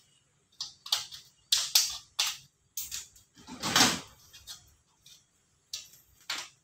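Thin metal insulation-jacketing sheet worked with a hand tool and a hand-cranked roller: about a dozen irregular sharp metallic clacks and sheet-metal rattles. The longest and loudest comes about four seconds in.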